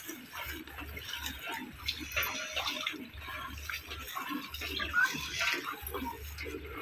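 Milk squirting from a water buffalo's teats into a metal pail as it is hand-milked, in a quick steady rhythm of about three squirts a second.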